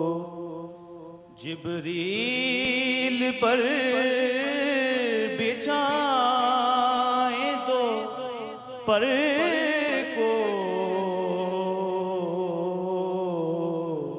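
A man singing a naat solo: long held notes with ornamented, wavering pitch. Short breaths between phrases about a second in and again about nine seconds in.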